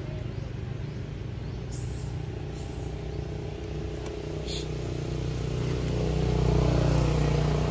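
A motor vehicle's engine running steadily, growing louder from about five seconds in as it comes closer.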